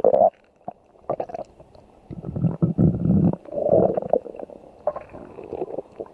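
Cartoon stomach-growling sound effect: a stomach growling in a string of about five short, uneven rumbles with brief gaps between them.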